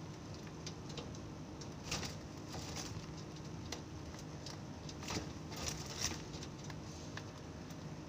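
Zebra doves moving about a wire cage: scattered light taps and rustles of feet and wings on the mesh and perch, a handful over several seconds, above a steady low hum.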